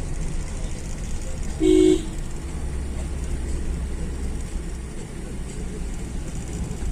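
Steady low rumble of a car driving on a winding road, with one short, loud horn toot about one and a half seconds in.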